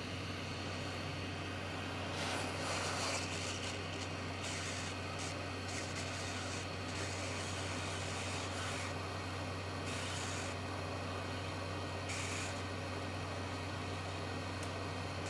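Hot air rework station blowing steadily: a constant fan hum under a hiss of hot air, with several brief louder swells of hiss, while it melts the solder on a tiny surface-mount resistor to lift it off the board.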